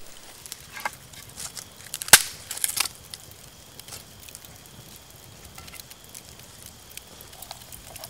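Campfire crackling: scattered sharp snaps and pops in the first three seconds, the loudest about two seconds in, then only faint crackles.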